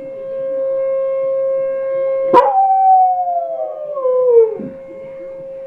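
A dog howling: one long howl that starts sharply about two seconds in, slides steadily down in pitch and fades out near the five-second mark. Under it runs a steady, unchanging pitched tone.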